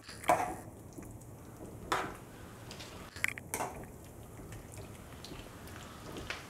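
Spoon stirring raw prawns coated with spices and their released water in a pot: four short, wet stirring strokes with light knocks of the spoon against the pot.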